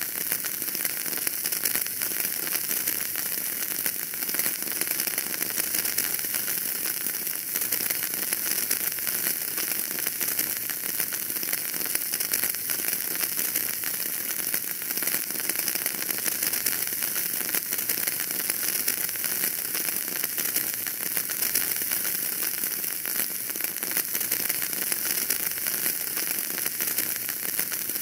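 Wood fire burning in a fireplace, crackling steadily: a continuous hiss thick with small pops and snaps.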